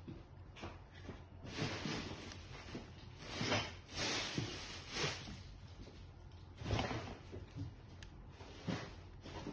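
Irregular handling noises: about six brief rustles and scrapes, as of hands moving and handling objects at close range.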